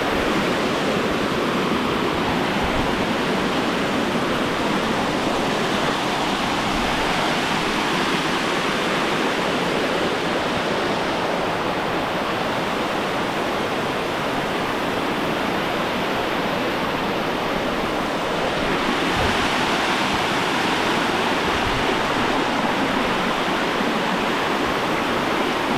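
Waterfall: a steady rush of falling water, even and unbroken, swelling slightly about two-thirds of the way through.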